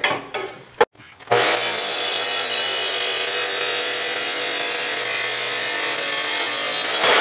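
Chop saw starting up about a second in, then cutting through metal flat bar in one steady, unbroken cut that throws sparks.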